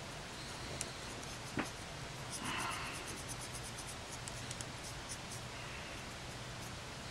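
Faint handling noise from a Canon PowerShot SX130 IS held by its extended lens barrel. There are a couple of light clicks, a short scuff, then a run of soft, fairly regular ticks for a few seconds, over steady hiss.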